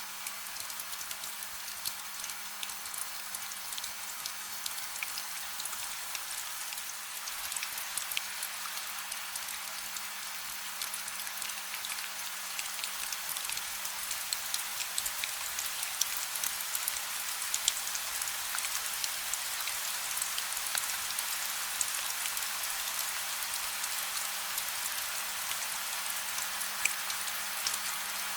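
Steady gentle rain, a dense hiss of many small drop ticks with no thunder, growing slightly louder as it goes on. A faint steady low hum runs underneath.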